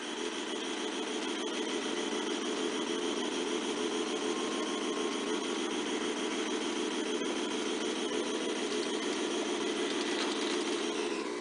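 Recorded diesel locomotive engine sound played through a model railroad layout's sound-system speaker, running steadily, then cutting off suddenly near the end.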